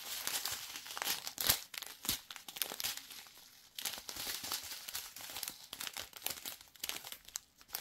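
Thin plastic zip bags of round diamond-painting drills crinkling as they are handled and turned, in irregular crackles with a short lull about three seconds in.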